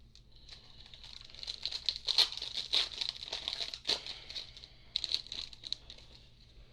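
A foil trading-card pack wrapper being torn open and crinkled by hand, a dense run of crackles that thins out near the end.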